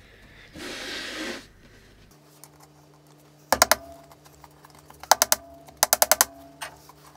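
Hammer driving nails through a 12 mm MDF top panel into the box's side edges, in quick bursts of light strikes: about three, then four, then five or six. About a second in, a short rushing noise.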